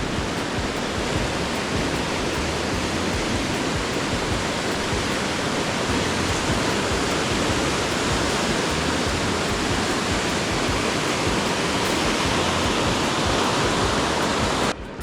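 Fast, flood-swollen river water rushing steadily, a dense even roar that cuts off abruptly near the end.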